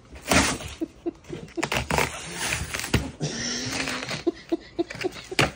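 Tearing and handling of duct tape and packaging on a heavily wrapped present, a run of irregular ripping noises and sharp clicks.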